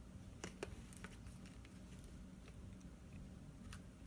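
Faint scattered clicks and taps of small tools and parts being handled while working on an iPhone 5s, over a faint steady low hum.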